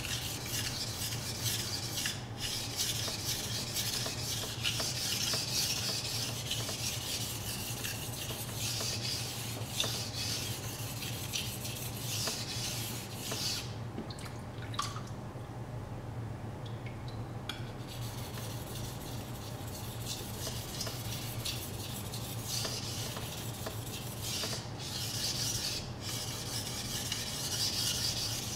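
R2-steel Japanese kitchen knife blade being stroked back and forth on a wet whetstone: a steady gritty scraping with each pass. The strokes stop for a few seconds about halfway through, then start again.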